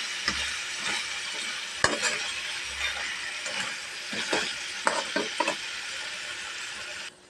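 Crab pieces in butter, garlic and oyster sauce sizzling in a pan, a steady hiss with scattered sharp clicks. The sound drops away suddenly near the end.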